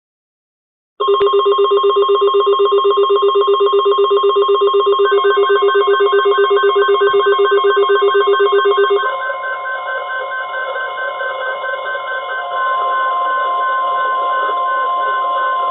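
Weather radio receivers going off for a severe thunderstorm watch alert. A loud, rapidly warbling alarm starts about a second in, and a second, slower beeping tone joins midway. About nine seconds in the warble stops and a steady high NOAA Weather Radio attention tone takes over, with the beeping still going.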